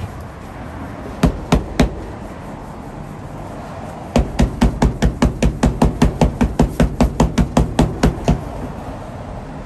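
Hammering: three sharp strikes about a second in, then a fast, even run of about twenty strikes at roughly five a second for some four seconds.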